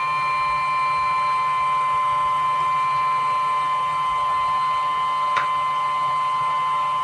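Steady electric whine of a running board preheater's fan, one high tone with several fainter ones above it over a low hum, with a faint click about five seconds in.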